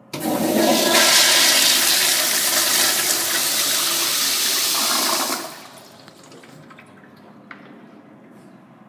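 Commercial toilet on a flushometer valve flushing: a sudden loud rush of water through the bowl for about five seconds that cuts off sharply as the valve closes.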